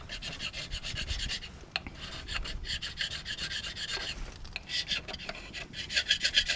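Carbide hand scraper scraping old head-gasket material and rust off the cast-iron deck of a Duramax diesel block. It goes in quick, short strokes, in several runs with brief pauses between them.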